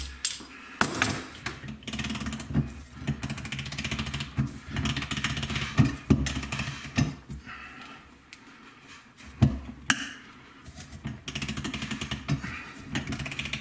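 Hand-turned coil-winding jig clicking rapidly in runs as copper wire and cable are wound onto the core, with a few sharper knocks and a pause about two-thirds of the way through.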